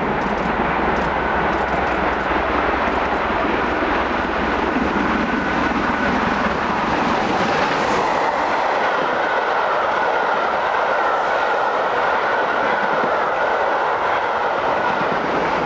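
A steam-hauled passenger train passing through at speed. A heavy low rumble from the locomotive drops away about six seconds in, leaving the steady rush and rattle of the coaches running past on the rails.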